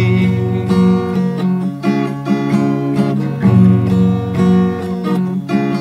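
Acoustic guitar strummed alone, steady chords changing about once a second.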